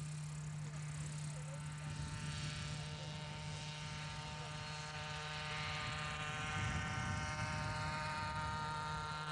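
Radio-controlled scale model helicopter's engine running with a steady whine as the helicopter lifts off and flies, growing somewhat louder about two-thirds of the way through.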